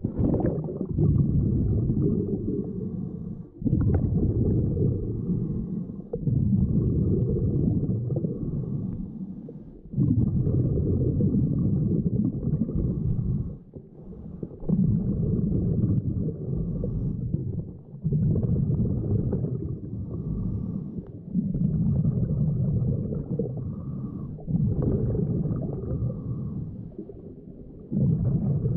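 Scuba diver's breathing heard underwater: the regulator's exhaled bubbles bubble out in low, muffled bursts of two to three seconds, about eight of them, with short quieter gaps between as the diver breathes in.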